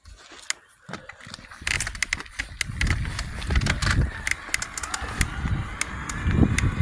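Bicycle being ridden off: many sharp clicks and knocks, with wind rumbling on the microphone that starts about a second and a half in and grows louder.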